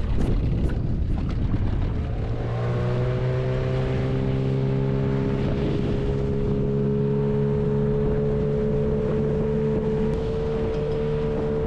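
Dinghy outboard motor running under way: its tone comes in about two seconds in, rises slightly as it speeds up, then holds steady.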